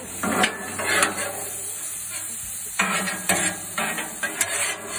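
Small pieces of strip steak sizzling on a steel Blackstone griddle top, a steady frying hiss. Several short scrapes and clicks against the griddle plate break in, a few clustered around three seconds in.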